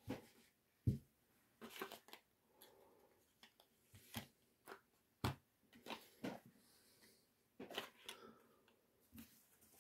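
Cardboard perfume boxes, a plastic tube and paper sample cards being handled and set down one by one on a soft blanket: faint, scattered light knocks and rustles, the sharpest a little past halfway.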